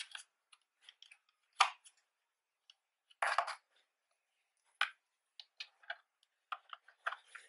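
Hands handling plastic FPV goggles and their cables: scattered light clicks, taps and short scrapes as cables are routed and plugs are fitted into the goggles' analog adapter, with a sharper click about a second and a half in and a short scrape about three seconds in.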